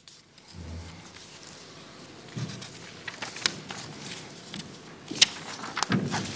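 Footsteps and shuffling of several people walking off a stage, with scattered sharp clicks, the loudest about five seconds in.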